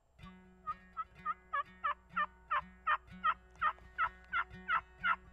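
Turkey yelping: a long, even run of short yelps, each falling in pitch, about three a second.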